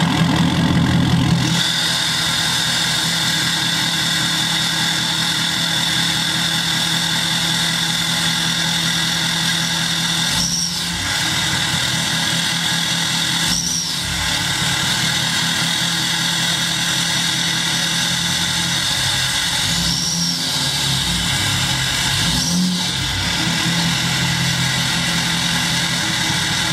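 Ford Super Duty pickup's diesel engine idling just after startup, heard through an axle-dump exhaust with no tip fitted. It is louder for the first second or so, then settles to a steady idle. The note briefly changes four times, each time with a short high whistle that rises and falls.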